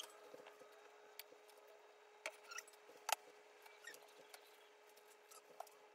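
Quiet handling sounds: scattered light clicks and knocks as plant pots are lifted from and set down on shelves. The loudest is a sharp knock about three seconds in, and a faint steady hum runs underneath.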